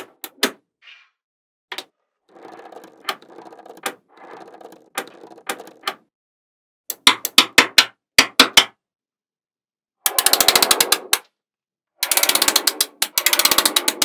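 Small magnetic balls clicking sharply as they snap together one at a time, with softer rattling between clicks. Later come two long bursts of rapid clattering, about a second in length and then about three seconds, as many balls rattle against each other at once.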